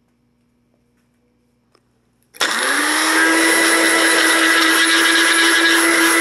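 Bullet-style personal blender switched on about two seconds in, its motor spinning up quickly and then running steadily at full speed while grinding dried plant material.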